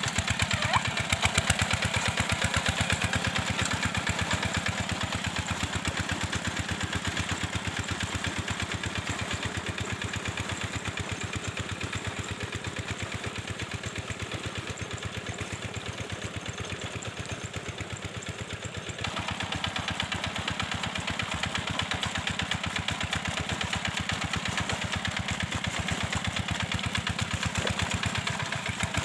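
Two-wheel hand tractor's single-cylinder diesel engine running steadily with a fast, even knock, becoming suddenly louder about two-thirds of the way through.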